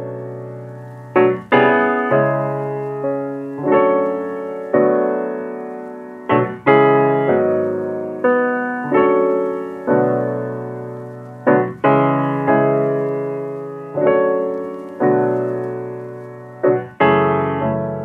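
Background piano music: slow chords struck one after another, roughly once every second or so, each ringing out and fading before the next.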